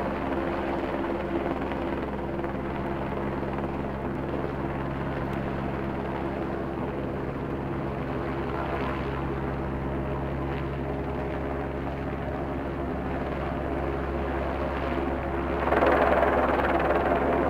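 News helicopter hovering overhead: a steady drone with a few held low tones from its rotors and engine. A broader rush of noise swells louder near the end.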